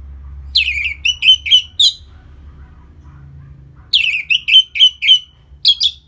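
Orange-headed thrush singing: two phrases of quick, clear, slurred notes, about half a second in and again about four seconds in, with a short third phrase near the end.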